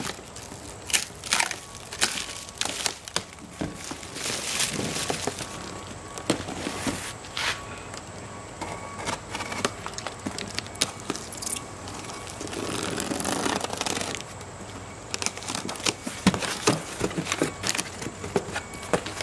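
Clear plastic stretch wrap crinkling and tearing as it is cut and pulled away, then a cardboard box being handled and opened, with its crumpled packing paper rustling. An irregular run of sharp crackles, with a longer rustle about two-thirds of the way in.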